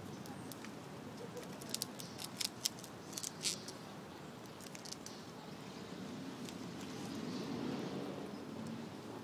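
Fox squirrel gnawing on a fibrous plant stalk, a quick run of sharp crunching clicks from its teeth in the first half, then a few scattered ones, over a steady background hiss.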